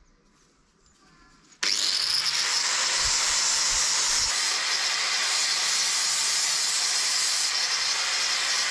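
Angle grinder with a flap disc grinding a knife's steel blank and oak handle flush. It comes in suddenly about a second and a half in and runs steadily.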